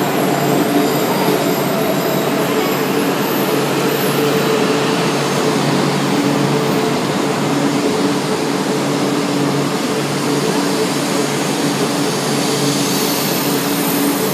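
E4-series Max double-decker Shinkansen, two coupled 8-car sets, moving past along the platform: a loud, steady rush of wheels and running gear with a low hum under it.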